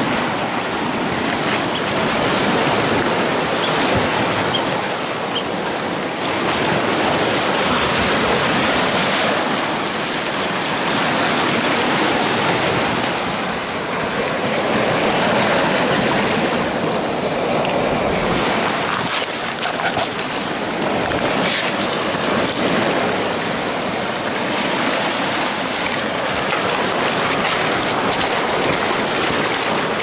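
Small sea waves breaking and washing in over a pebble-and-rock shore, the surf swelling and easing every few seconds.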